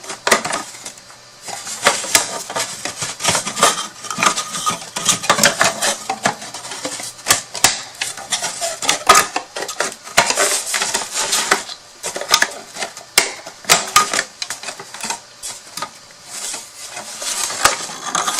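Irregular clicks, taps and rattles of the pieces of a cut craft storage box being handled and pushed together at their slots.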